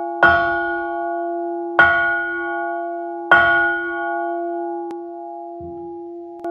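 A bronze church bell of about 80 kg struck three times with a wooden mallet, about a second and a half apart. Each blow rings on with a steady low hum and higher partials, and after the last blow the bell slowly fades. Its tone has evened out and now sounds more even and true.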